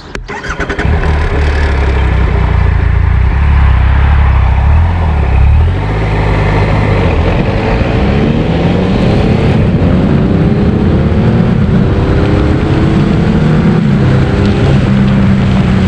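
Motorcycle engine running steadily, then pulling away: from about six seconds in the revs climb, and they climb again partway through as it shifts up a gear and accelerates.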